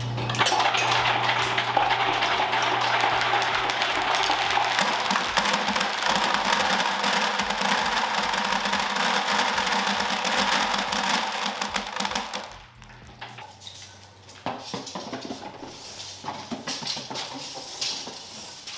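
Motorised marble lift running with a load of marbles, a dense clatter of glass marbles rattling through it over a steady motor hum. The clatter stops about twelve seconds in, leaving a quieter hum and scattered clicks.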